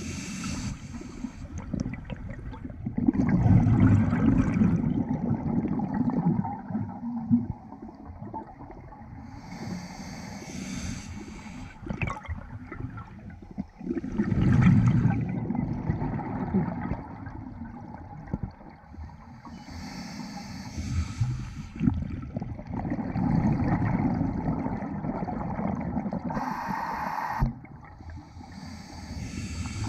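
Scuba diver breathing through a regulator underwater, heard through the camera housing. A short hissing inhale comes about every ten seconds, each followed by a few seconds of loud, low burbling of exhaled bubbles.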